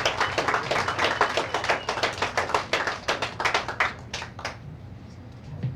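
A small crowd clapping, the claps thinning out and stopping about four and a half seconds in.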